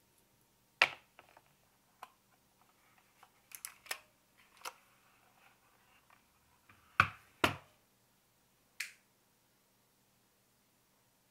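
A handful of short, sharp clicks and knocks at irregular intervals, the loudest about a second in and a pair around seven seconds in, with a quick cluster in between.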